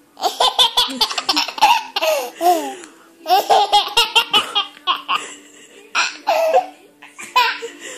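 Repeated peals of high-pitched laughter in several runs separated by short pauses, over a faint steady hum.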